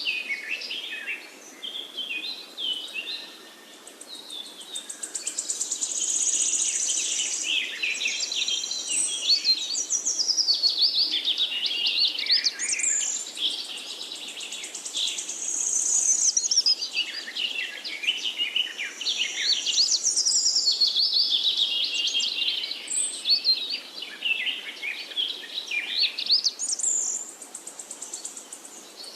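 Chorus of wild songbirds: many high chirps, whistles and trills overlapping without a break.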